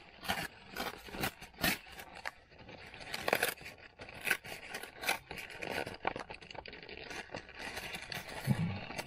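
Paperboard KFC snack box being pulled and torn apart by hand: irregular crackling, scraping and tearing of card.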